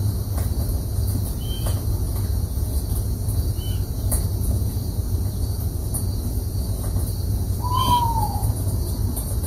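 A bird's single short call that rises slightly and then falls, near the end, with a few brief high chirps earlier, over a steady low rumble.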